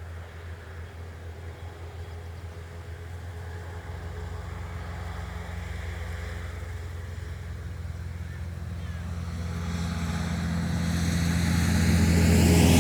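Traffic on a rural main road: a steady low engine rumble, then a fast vehicle approaching, growing steadily louder over the last few seconds with rising tyre hiss.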